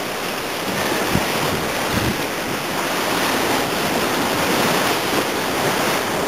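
Steady rush of whitewater on the Arkansas River heard from a paddle raft, with wind noise on the helmet-mounted microphone.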